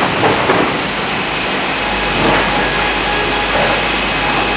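Steady din of a running sawmill line, with saw motors and log conveyors running together. There are a few knocks of timber on the conveyor in the first half second, and a deep motor hum grows stronger about two seconds in.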